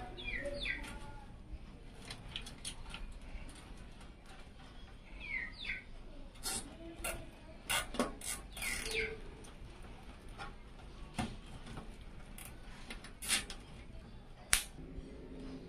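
Thin PC cables being handled and bundled, with scattered plastic clicks and rustling. The clicks bunch up in the middle. A sharp snip comes near the end as side cutters trim a cable tie.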